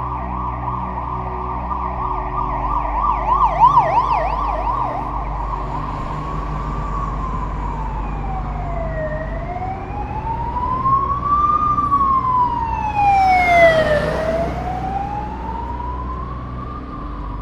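Police car siren: a fast yelp for the first few seconds, then a slow rising-and-falling wail, over a low steady traffic rumble. A short rushing noise comes in at the bottom of a falling sweep, about two-thirds of the way in.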